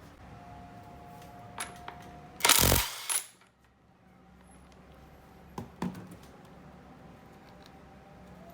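Metal engine parts and hand tools clinking and clattering as they are handled, with a few sharp clicks and one loud, brief rattle.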